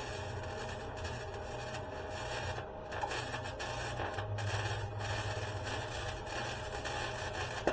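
Electric arc welding on rusted, corroded steel: a steady, dense crackle of the arc with a low hum underneath, cutting off suddenly at the very end as the weld is finished.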